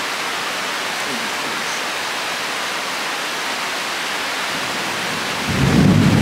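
Heavy rain pouring down in a steady hiss during a violent thunderstorm, with a deep rumble of thunder breaking in near the end.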